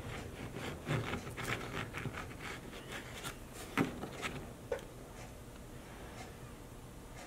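Light scratching and clicking of a plastic welder's hot tip and a steel socket working wire mesh into a polyethylene tank wall. The small ticks come thickly in the first half, with one sharper click about four seconds in, then the sound quietens.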